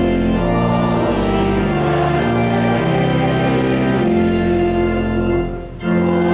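Church organ playing a hymn in sustained chords that change every half second or so, with a short break about five and a half seconds in before the next chord.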